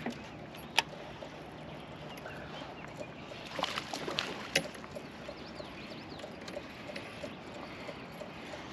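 A few sharp clicks and knocks, as from fishing gear being handled in a small boat, over a steady outdoor background. The loudest click comes about a second in, and a cluster of smaller knocks follows around four seconds in.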